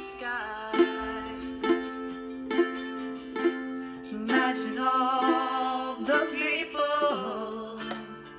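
Ukulele played solo, chords picked or strummed at a slow, steady pace of about one stroke a second, each ringing on into the next.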